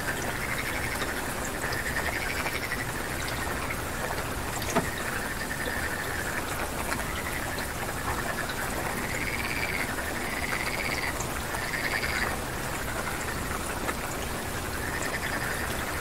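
Frogs calling: short trilled calls that rise and fall in pitch, repeated every second or few, over a steady hiss of falling rain. A single sharp click about five seconds in.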